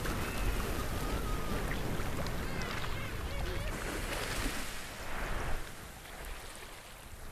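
Sea water sloshing and washing at the surface, with a few faint whistled calls rising and falling in pitch during the first half.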